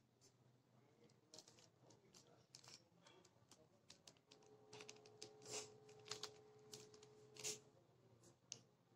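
Quiet, irregular plastic clicks and rattles of a mirror cube's layers being turned by hand. A faint steady tone sounds for a few seconds in the middle.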